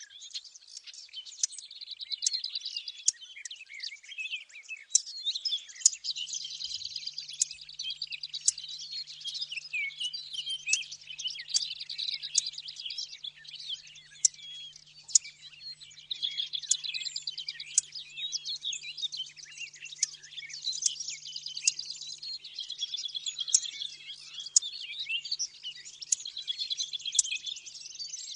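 Recorded warbler song mixed for use as a bird-hunting lure, with willow warbler, lesser whitethroat and blackcap songs layered together. It plays as dense, unbroken high twittering and warbling, with sharp ticking call notes scattered through it.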